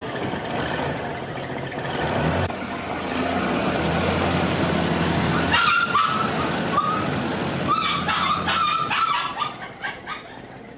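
An old car's engine running as the car pulls up and stops, with a dog barking several times over it in the second half.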